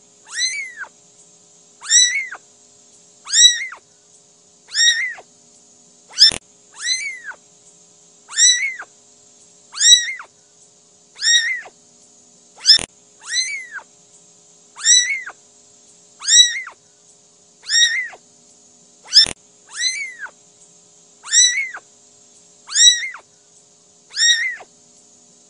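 A very young kitten mewing over and over, about one high mew every second and a half, each rising then falling in pitch. A sharp click sounds about every six and a half seconds.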